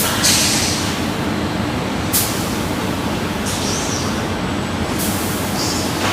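Industrial machinery running with a steady low rumble, while a high hiss like escaping air starts abruptly four times: just after the start, about two seconds in, about three and a half seconds in, and about five seconds in.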